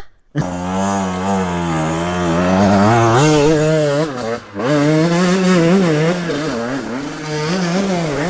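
Two-stroke enduro motorcycle engine working under load, its pitch rising and falling as the throttle is worked, with a brief dip off the throttle about four and a half seconds in.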